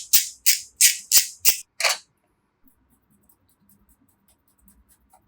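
Shaker-like rhythm of sharp hissing strokes, about three a second, which stops about two seconds in. Only faint scattered light clicks follow.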